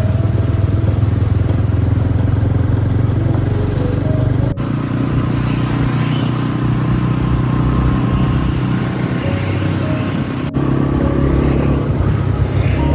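Motorbike traffic on a busy street: small engines running steadily. The sound cuts abruptly about four and a half and ten and a half seconds in.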